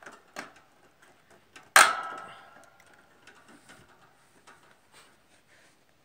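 Wire bird cage being handled, with light clicks and ticks of parts against the bars. A little under two seconds in comes one sharp metallic clank that rings on for about a second as it fades.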